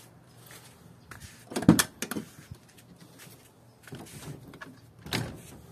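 Car door being opened and a person climbing into the driver's seat: a sharp clunk with a dull thud a little under two seconds in, then a few softer knocks and rustles.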